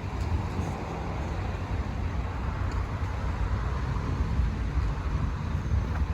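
A vehicle engine running with a steady low rumble that grows slightly louder.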